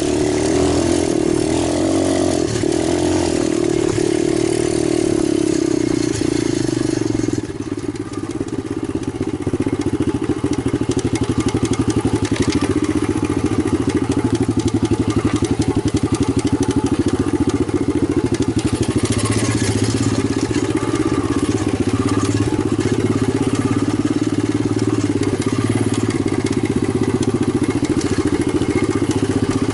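Italjet 125 pit bike engine running: it eases off about seven seconds in, then settles into a steady, rapidly pulsing run.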